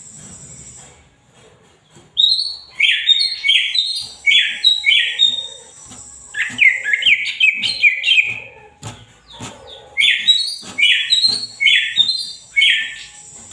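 Green leafbird (cucak ijo) singing loudly in fast runs of repeated sweeping notes, over a thin, steady, high-pitched trill. There are two runs, with a short break in the middle marked by a few sharp clicks.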